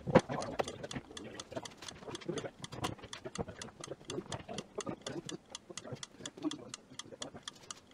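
Rapid, evenly spaced clock-like ticking, about five ticks a second, with a low murmur underneath.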